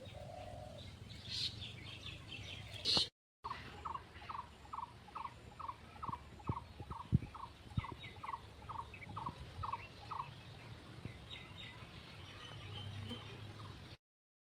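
Birds calling: one bird repeats a short, curved note about twice a second for some seven seconds, with scattered higher chirps from others. A brief cut to silence about three seconds in.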